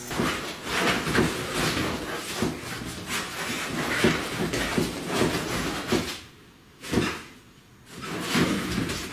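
Two dogs play-fighting on a bed: an irregular jumble of thumps and scuffling. Near the end it thins to a few separate bumps.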